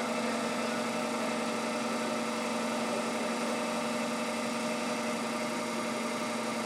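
Binns & Berry Data 90 CNC lathe running with its spindle turning in the high speed range: a steady, quiet machine hum.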